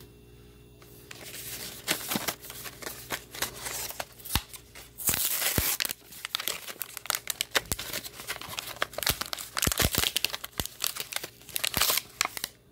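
Blister pack of ballpoint pens being torn open: the paper backing card tearing and the plastic tray crinkling. It starts about a second in as a dense run of sharp crackles and rustles, which stops just before the end.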